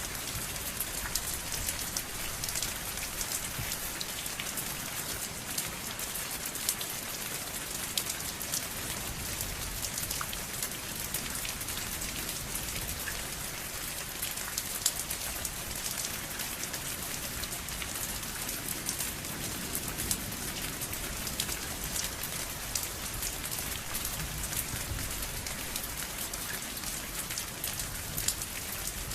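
Steady rain falling, a constant hiss with many individual drops ticking sharply on a surface.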